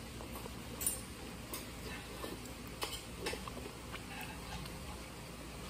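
Quiet eating sounds: instant ramen noodles slurped and chewed, with a few small clicks and scrapes of a metal fork in the cup, over a low steady hum.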